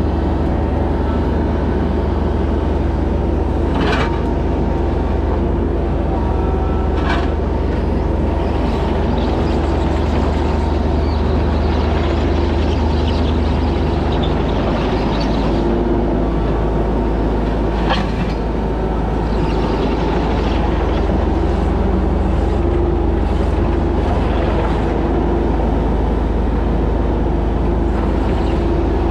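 Bobcat E26 mini excavator running steadily, its low engine note shifting about halfway through. Three sharp knocks stand out, about four, seven and eighteen seconds in.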